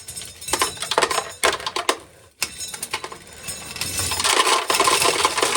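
Dried corn kernels rattling and clinking into a pail as an ear is shelled: scattered sharp clicks at first, building to a dense continuous rattle about halfway through.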